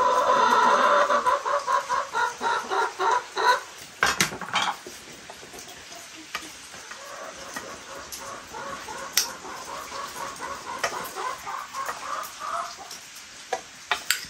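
Chickens clucking in runs of quick repeated notes, loud for the first few seconds, then fainter for a while. A few sharp clinks from utensils on pots and bowls.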